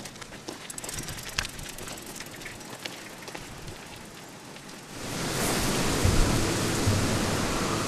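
Wheels of a hand-pushed cart and footsteps crunching and crackling on a dry dirt road, turning into a louder, denser rushing crunch about five seconds in as the cart rolls close.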